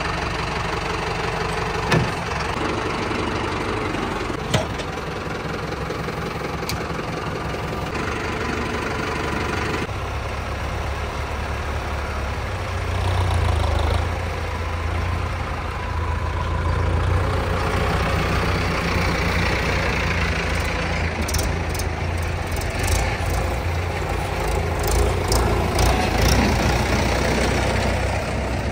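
Diesel engine running steadily, getting louder and deeper about halfway through as it works harder. Sharp knocks come early on, and a run of clanks follows in the last few seconds.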